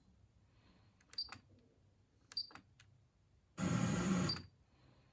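Pioneer KEH-M9300RDS car radio tuner seeking between stations: the audio is mostly muted, broken by two brief snatches of broadcast, then a longer one of about a second just past the middle.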